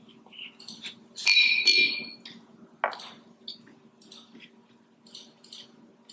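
A brief ringing clink, like a brush against glass, about a second in. A sharp tap follows, then faint scratching ticks of a paintbrush working paint in the pans of a watercolour palette.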